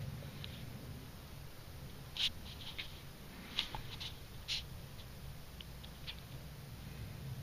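Scattered faint clicks and ticks in short runs over a low steady hum, from an African bullfrog working a large mouse down its throat.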